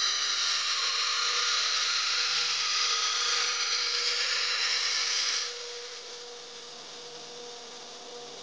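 Belt grinder grinding the steel of a chef's knife blade made from old saw-blade steel: a steady, loud hiss of steel against the running abrasive belt. About five seconds in the blade comes off the belt and the grinder runs on freely, much quieter, with a low hum.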